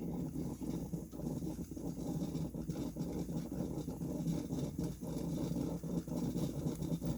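Royal vacuum coffee maker heating its water over a wick flame: a steady low bubbling rumble with many small irregular ticks, as the boiling water starts to be pushed across into the coffee chamber.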